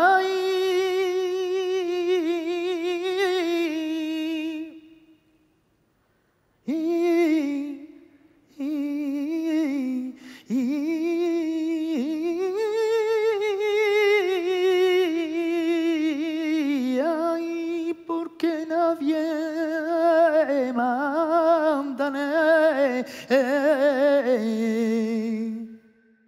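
A single unaccompanied voice singing a slow, wordless flamenco-style melismatic line with a wavering vibrato. The voice sings in long held phrases, falls silent for about two seconds around five seconds in, and ends on a lower sustained note.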